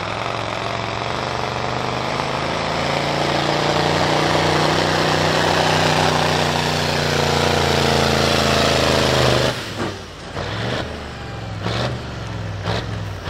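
Iveco pulling truck's diesel engine running flat out under load, pulling the weight-transfer sled; a loud steady drone that swells for about nine seconds. About nine and a half seconds in it drops off sharply as the throttle is released, leaving a lower running note broken by a few short sharp noises.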